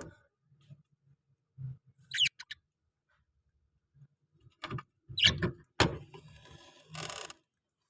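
Parrots calling in short, separate bursts: a quick falling chirp about two seconds in, a cluster of sharp calls around five to six seconds, and a brief harsh screech near the end.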